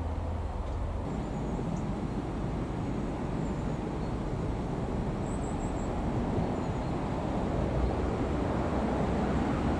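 Low rumble of an approaching Irish Rail 2600 class diesel multiple unit, growing slowly louder as it nears the level crossing.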